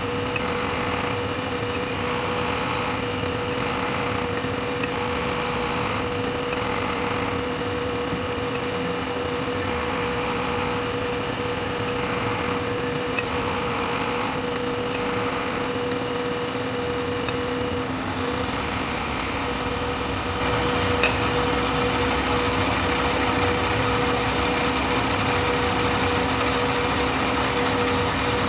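Manual milling machine spindle running with an end mill cutting aluminium: a steady motor hum under the cutting noise, with a high hiss that comes and goes every second or so as the cutter takes light passes. It gets a little louder about two-thirds of the way through.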